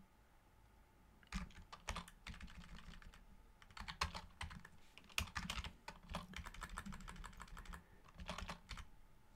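Computer keyboard typing: a run of light, irregular key clicks starting about a second in.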